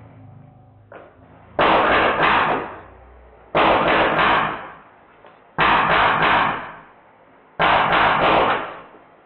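Drozd Blackbird BB machine gun, powered by compressed air, firing four short full-auto bursts about two seconds apart, each a quick string of sharp shots.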